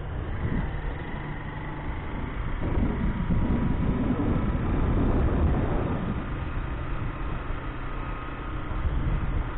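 Motorcycle engine running at a steady cruising speed, heard from a handlebar-mounted camera, with heavy wind buffeting on the microphone. The rumble grows louder about three seconds in.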